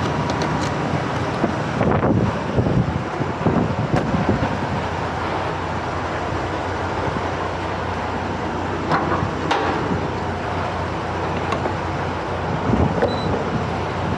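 Steady low rumble of diesel semi-truck engines idling, mixed with wind noise. A few short clicks and knocks sound about 2 to 4 seconds in and again around 9 seconds.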